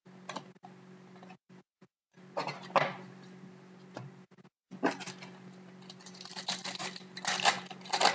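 Hands rustling hockey trading cards and crinkling and tearing open a foil card pack, in several short bursts of crackling, the longest and densest near the end. A faint low hum sits underneath and drops out now and then.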